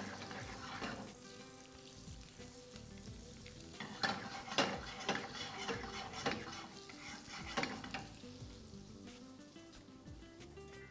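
Butter melting in hot oil in a frying pan, sizzling faintly while a spoon stirs it, with a run of scraping strokes against the pan between about four and eight seconds in.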